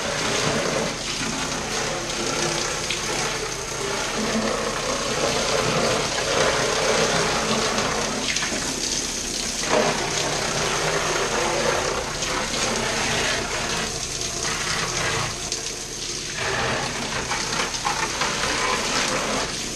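Handheld shower head spraying water onto a mud-caked RC truck and its plastic body shell in a shower stall: a steady hiss and splash that swells and dips as the spray moves over the truck.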